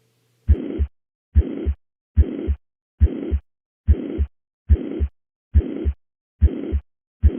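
Heart sounds heard through a stethoscope diaphragm at the cardiac apex, about 70 beats a minute. Between the first and second heart sound of each beat there is a high-pitched murmur of even loudness (holosystolic), typical of mitral regurgitation.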